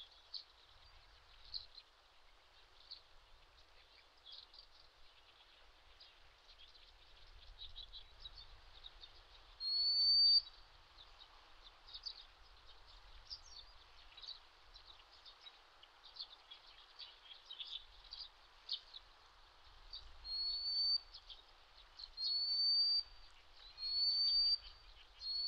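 Wild birds calling: many short, high chirps and ticks throughout, with a loud rising whistled note about ten seconds in and four more, a second or two apart, near the end.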